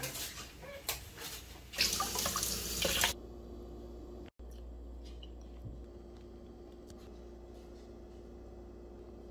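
A tap runs for about a second, an even rushing hiss that stops abruptly. Then a faint steady hum with a low tone follows.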